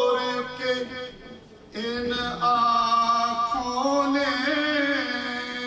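A man's voice chanting a marsiya, an Urdu elegy, in long held melodic notes, with a short breath pause about a second and a half in.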